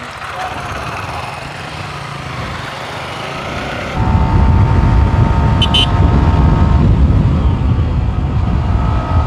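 Yamaha R15 V4's single-cylinder engine revving, its pitch climbing as the bike accelerates away. About four seconds in the sound jumps louder: a steady engine note under heavy wind rumble on the microphone at around 80 km/h.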